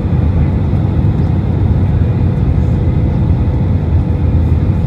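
Airbus A320 cabin noise: a steady low rumble of engines and air, with a faint steady hum above it.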